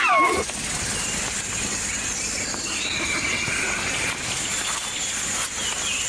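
A single drawn-out high-pitched animal squeal, rising and then falling, about three seconds in. Under it is forest ambience with a steady high insect drone.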